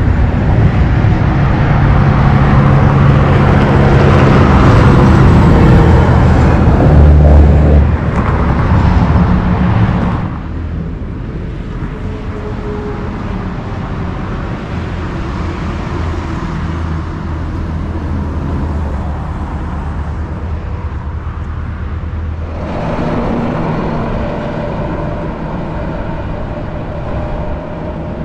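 Highway traffic, with heavy vehicles running past: a loud engine drone with steady low tones that drops suddenly about ten seconds in to a quieter, even rumble, then grows louder again near the end.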